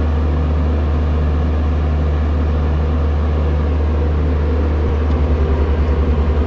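Steady low mechanical hum inside an air-conditioned railway coach standing at a station. About five seconds in, a fast low throbbing of roughly ten beats a second joins it.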